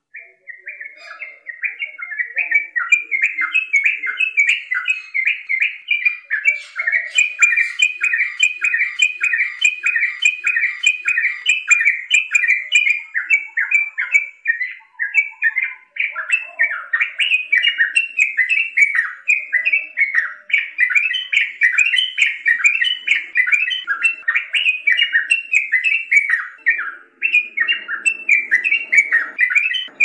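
Yellow-vented bulbul singing its chattering song: an unbroken run of quick notes, each dropping in pitch, about four a second.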